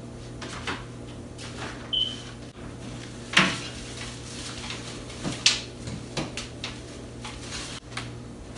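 Scattered knocks and clinks of household objects being picked up and moved, the loudest two about three and a half and five and a half seconds in, with a brief high squeak about two seconds in, over a low steady hum.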